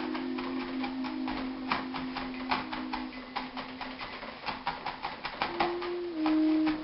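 Chef's knife dicing red sweet pepper on a plastic cutting board: quick, irregular taps about three a second. Soft background music of held notes underneath.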